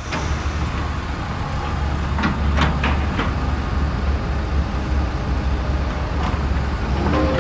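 Heavy construction machinery running with a steady, deep engine rumble, with a few sharp clanks about two to three seconds in.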